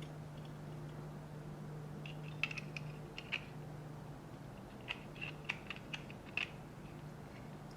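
Scattered light clicks and taps of small parts being handled and fitted during reassembly of a Hitachi Magic Wand massager, in two short clusters over a steady low hum.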